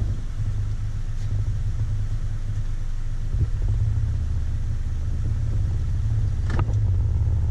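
Outboard motor of a Sea Ark aluminum boat running steadily, a low even hum. A brief sharp knock near the end.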